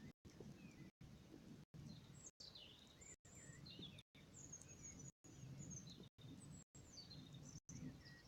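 Faint birdsong: several small birds giving short chirps and quick whistled glides, with a low, faint rumble beneath. The recording drops out for an instant roughly every second.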